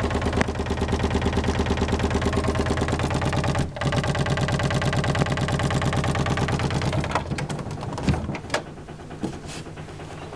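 Wooden interior door rattling rapidly and evenly in its frame, shaken by a 9 Hz subsonic tone from eight Dayton Audio Ultimax 18-inch sealed subwoofers. The rattle stops about seven seconds in, leaving a few scattered knocks and clicks.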